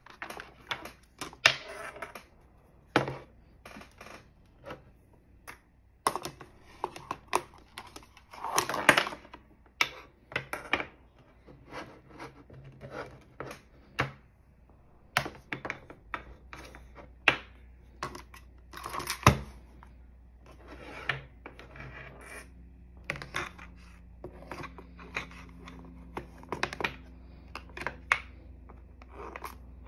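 Hands handling a portable battery spot welder and its cables and packing them into a clear plastic storage box: irregular clicks, knocks and short rattles of plastic and metal. A faint steady low hum comes in about halfway.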